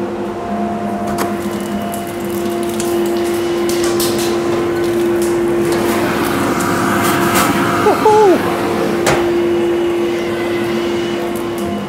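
Workshop dust extractor running, a steady hum with the rush of air drawn through the pipework, which swells for a couple of seconds in the middle. Several sharp clicks and knocks come as blast gates at the machines are worked, and a short squeak falls in pitch about eight seconds in.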